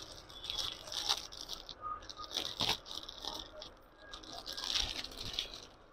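Clear plastic garment bag crinkling and rustling in irregular crackles as a packed kurti is handled and slid out of it.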